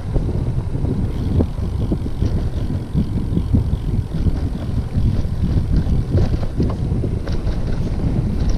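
Wind buffeting the microphone of a camera on a moving bicycle: a loud, gusty low rumble.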